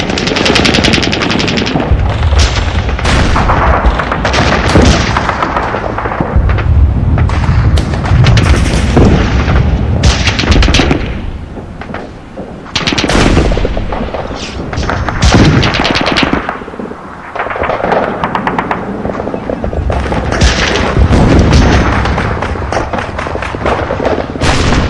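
Battle sound effects: bursts of rapid machine-gun fire and gunshots over deep booms of explosions, dense and loud, with two brief lulls partway through.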